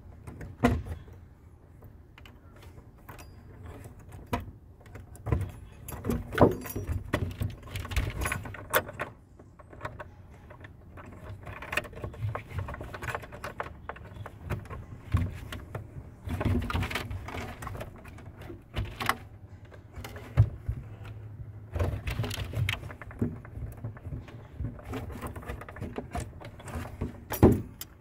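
Gloved hands handling wiring and small metal fittings in an RV transfer switch box: irregular clicks, small metallic clinks and rustling, with a few sharper knocks about a second in, around six seconds in and near the end.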